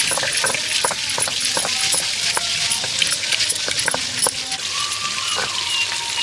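Stone pestle rolled back and forth on a flat grooved grinding stone (sil-batta), crushing garlic, chillies and whole spices into paste. It makes a steady gritty scraping with many irregular crunching clicks.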